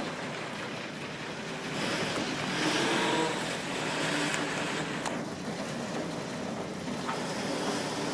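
Motorboat engine running, mixed with a broad wash of noise that swells louder about two seconds in.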